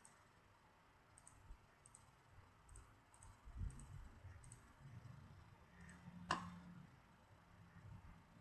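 Faint, sparse clicking of a computer mouse, with one sharper click about six seconds in, over quiet room tone.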